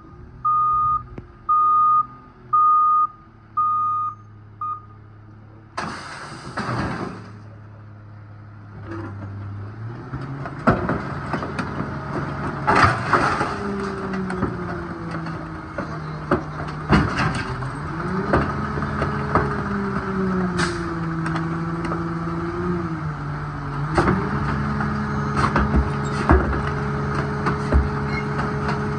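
Rear-loader garbage truck: its reversing alarm beeps about once a second and stops about five seconds in, followed by a short hiss of air near six seconds. From about ten seconds in the diesel engine revs up to drive the packer, its pitch rising and falling, with repeated clanks and cracks of bulk items being thrown into the hopper and crushed.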